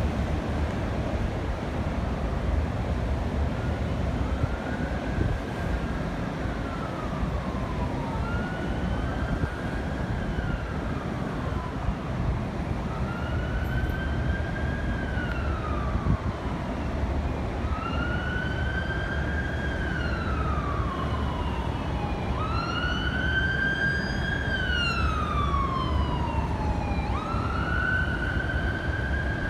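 Emergency vehicle siren in wail mode: a slow rise and longer fall in pitch, repeating about every four seconds and growing louder toward the end, over a steady low rumble.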